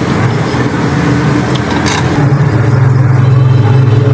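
Steady low engine hum over background noise, like passing road traffic, growing louder and steadier about two seconds in, with a faint click just before.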